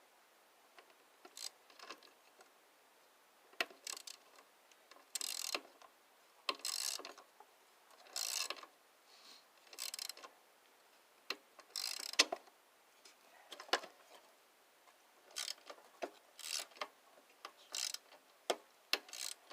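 Socket ratchet wrench clicking in short bursts, one stroke every second or two with pauses between, as nuts are retightened.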